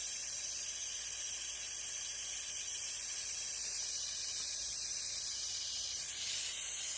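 Gas torch burning with a steady hiss, heating a bronze master to flow silver solder onto a sprue.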